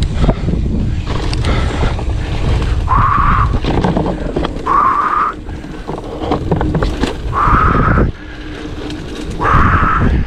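A mountain biker's heavy, hard breathing: four deep breaths about two seconds apart, the sound of someone out of breath at a heart rate of about 180 after a hard effort. Under it runs a steady low rumble from riding on the trail, with scattered knocks.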